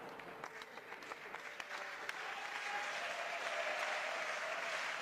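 Congregation applauding: scattered claps at first, swelling into fuller, steadier applause about two seconds in.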